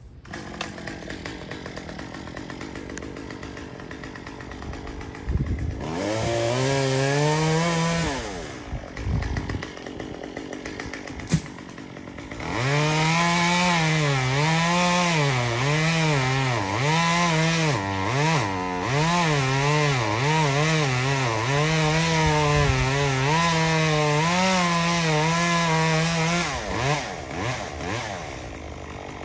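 Two-stroke chainsaw idling, revved up briefly about six seconds in, then held at high revs for about fourteen seconds with its pitch repeatedly dipping and recovering as the chain bites into pecan wood, before dropping back to idle near the end.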